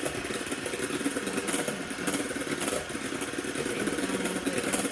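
Electric hand mixer running steadily on a high setting, its beaters whipping instant coffee, sugar substitute and boiling water into a foam in a stainless steel bowl, with a few short clicks.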